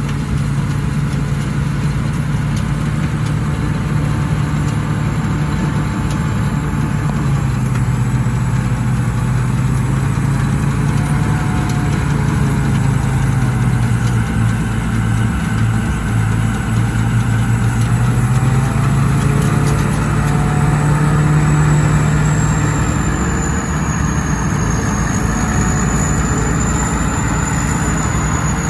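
Combine harvester running: a steady diesel engine hum that drops in pitch for several seconds in the middle and comes back up after, with a thin high whine above it.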